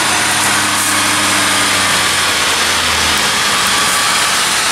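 Truck engine idling steadily under an open hood, just started off a portable jump-starter pack after its battery had been dead for a week. A low hum drops away about three seconds in.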